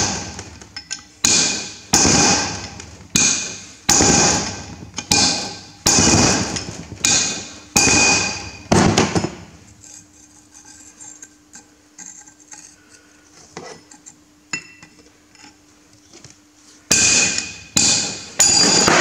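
Hammer blows on a chisel against the steel bearing locking collar of a Massey Ferguson 135 rear axle shaft, each strike ringing, to split the collar off. The blows come about once a second for the first half, then a lull of light metal clicks and taps, then a few more heavy blows near the end.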